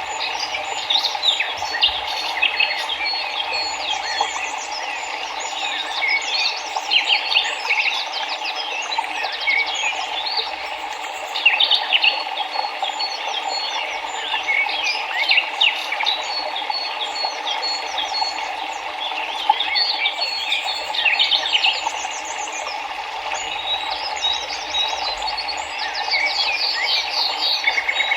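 Many birds chirping and trilling together, with quick repeated notes throughout, over the steady rush of a flowing river.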